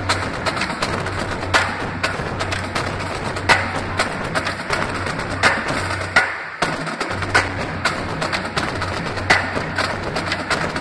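Pep band playing, with marching drums loud and close, including a marching bass drum. A steady run of drum hits carries strong accents about every two seconds, and the low sustained band sound drops out briefly about six and a half seconds in.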